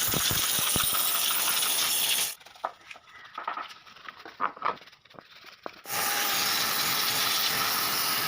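Spray hissing in two long bursts, one at the start and one from about six seconds in, with light clicks and knocks in the pause between.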